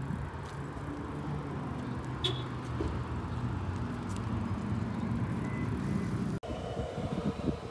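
Steady hum of road traffic with a low engine drone from motor vehicles, breaking off for an instant about six seconds in.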